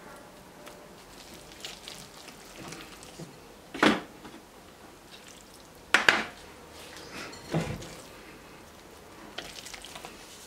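Wire whisk stirring thick, lumpy waffle batter in a glass bowl, with soft scraping and a few sharp clinks of the whisk against the glass, the loudest about four and six seconds in.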